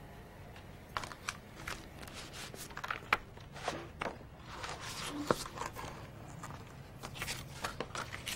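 Framed photographs and loose prints being handled and set down, giving irregular light clicks, taps and paper rustles over a steady low hum.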